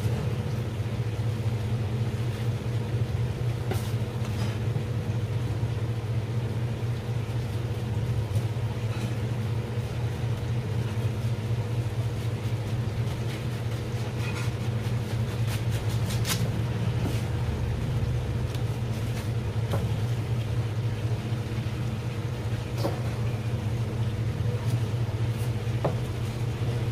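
A steady low mechanical hum, engine-like, runs throughout. A few light, sharp clicks come through it, from a knife against the cutting board while cutlassfish fillets are trimmed.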